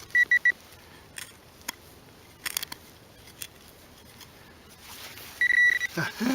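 Garrett Pro-Pointer pinpointer beeping on a buried target: a quick run of short high beeps at the start, then a longer steady beep near the end, with scattered clicks and scrapes from searching the hole between them.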